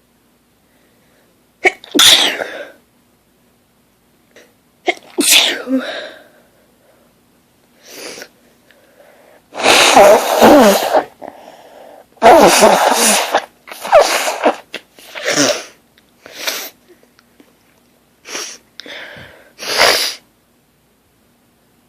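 A woman's sneezing fit: about ten sneezes one after another with short pauses between them, the longest and loudest near the middle.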